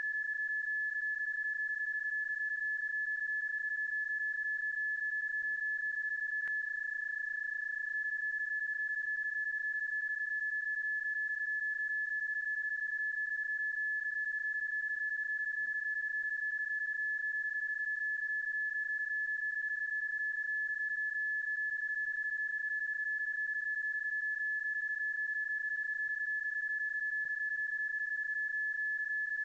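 PSK31 digital-mode tone: one steady, unbroken high-pitched tone. It is a looped sound effect, not the actual received signal.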